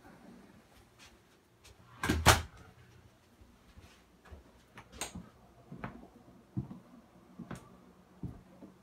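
A door shutting with a short clatter about two seconds in, then soft footsteps about once a second on a hard floor.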